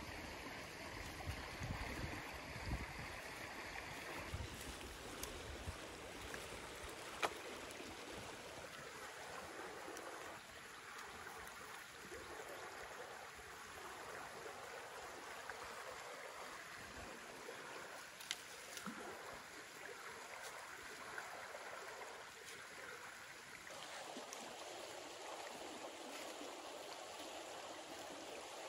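Steady rushing of a shallow river flowing over stones, with a few sharp clicks over it. The sharpest click comes about seven seconds in.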